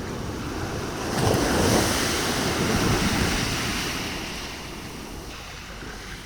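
Rough sea surf: a wave breaks about a second in, rising to its loudest, then washes out and slowly fades over the next few seconds.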